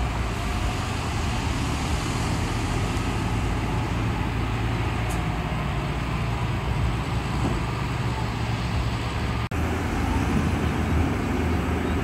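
Hyundai Trago dump truck's diesel engine running with a steady low rumble while the tipper bed is raised to unload sand. The sound breaks off for an instant about nine and a half seconds in, then the engine carries on.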